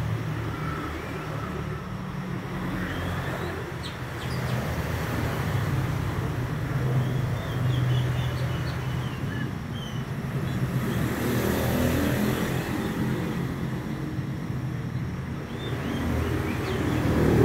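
A steady low mechanical hum, with a few faint, short high chirps scattered through it from a caged young male Oriental magpie-robin.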